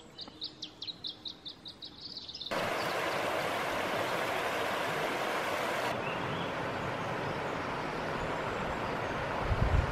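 A small bird gives a rapid series of short high chirps, about five a second. About two and a half seconds in, the sound switches abruptly to the steady rush of a river running over a shallow, stony riffle, with a brief low thump near the end.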